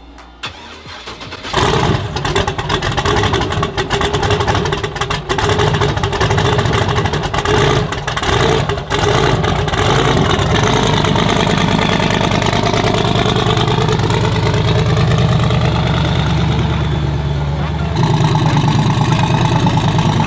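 Twin-turbo Chevrolet Silverado pickup's engine starting about a second and a half in, then running unevenly with brief dips for several seconds before settling to a steadier idle with small changes in pitch. It gets louder near the end as the truck moves off.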